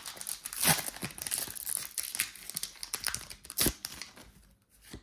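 Foil Pokémon booster pack wrapper being torn open and crinkled by hand, an irregular crackling with a couple of sharper rips.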